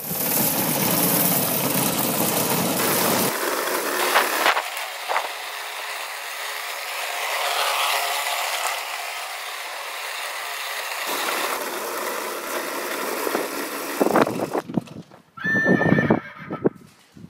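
Wild Pony novelty horn on a go-kart sounding a horse-like whinny over the steady noise of the kart being driven. The sound shifts abruptly a few times, and near the end it breaks into short uneven bursts with a brief high tone.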